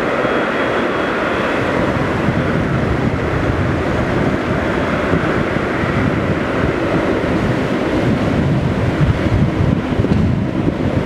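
Boeing 777's twin GE90 turbofan engines running with a loud, steady rumble as the jet rolls along the runway. Wind buffets the microphone, and the gusty low rumble grows stronger toward the end.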